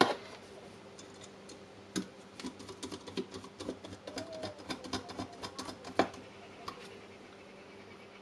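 Small screws being set and driven by hand screwdriver to fasten a circuit board into a plastic power-tool battery housing: a sharp click at the start, then a quick run of light ticks for about four seconds, ending in a louder click.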